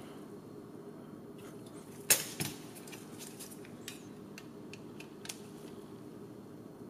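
Light clicks and taps of small frame parts and screws being handled at a workbench, with a sharp knock about two seconds in and a smaller one just after, over a steady low hum.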